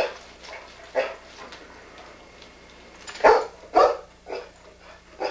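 A dog barking in short single barks, about five in all, with the loudest two close together about three seconds in.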